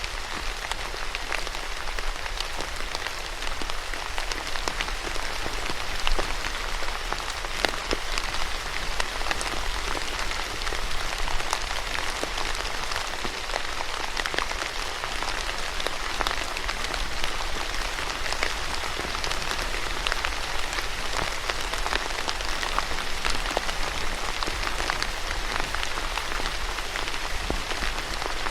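Steady rain falling on a surface, a dense even patter with individual drops ticking through it and a few louder drops.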